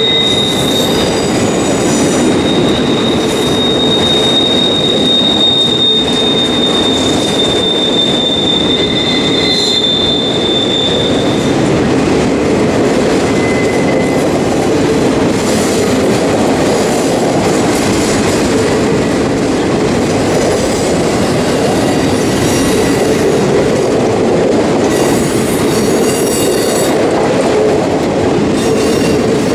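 Autorack freight cars rolling past with a steady rumble of steel wheels on rail. A thin, high-pitched wheel squeal is held through the first eleven seconds or so, with shorter squeals around 14 seconds and again near the end.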